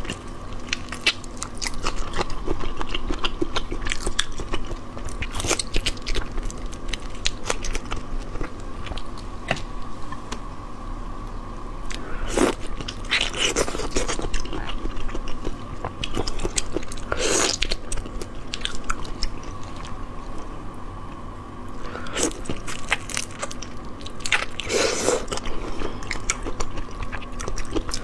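Close-miked eating of whole raw shrimp in spicy marinade: shells and heads crunching and crackling between the teeth with wet chewing, and shells snapping as they are peeled by hand. A faint steady hum runs underneath.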